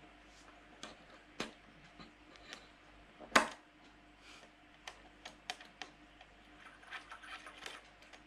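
Small clicks and taps of drag washers and the spool of a Shimano Ultegra XTD carp reel being handled and seated by hand, with one louder knock about three and a half seconds in and a run of quick light clicks a little later.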